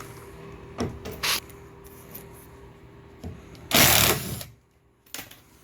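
Demolition of a fiberglass bathtub surround: two sharp knocks, then a loud rasping scrape lasting under a second, and a last click.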